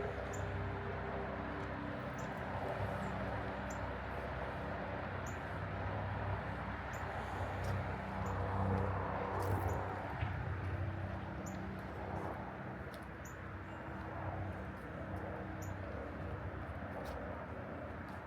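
City park ambience: a steady low hum of distant traffic, with many short, high bird chirps scattered throughout.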